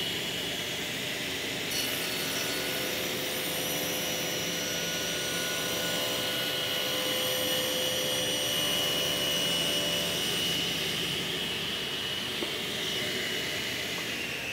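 Sliding table saw running and crosscutting the end off a 40 mm thick glued-up panel of sycamore and oak, the cut lasting from about two seconds in to about ten seconds in. Near the end the blade's whine starts to drop in pitch.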